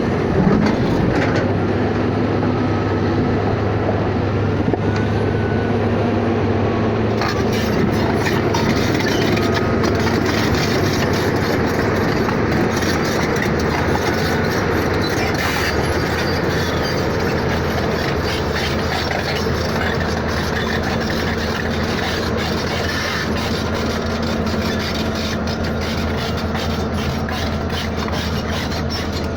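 Steady running noise of a moving vehicle: a constant low rumble with rattles and small clicks.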